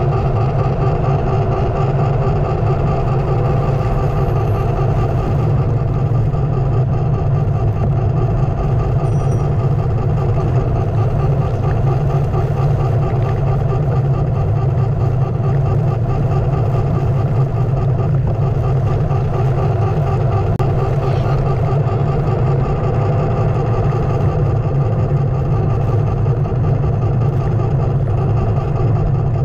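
Onewheel electric skateboard's hub motor and tyre running steadily over pavement, picked up by a camera mounted low on the board: a constant hum with a strong low rumble.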